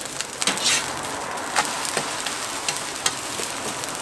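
Food frying in hot oil with a steady sizzle, broken by a few sharp clicks and scrapes of a cooking utensil.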